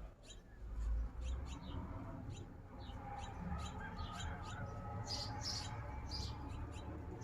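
Small birds chirping, many short high calls repeating throughout, over a low rumble that is loudest about a second in.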